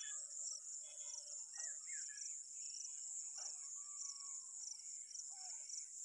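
Crickets trilling in a steady, high-pitched, evenly pulsing chorus. Occasional short bird chirps and one longer whistle about four seconds in sound over it.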